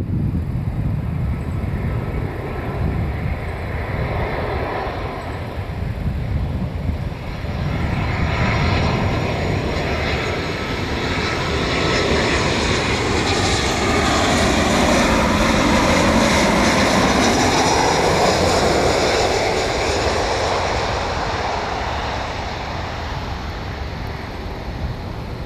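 Boeing 737 jet engines on landing approach, passing close by. A steady jet rumble and whine grows to its loudest about halfway through, the whine falls in pitch as the airliner passes, and the sound eases off as it flares over the runway.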